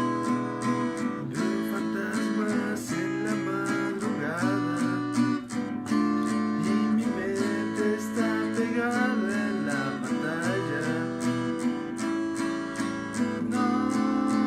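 Music: an acoustic guitar strummed in a steady rhythm, with a wavering melody line over it in the middle.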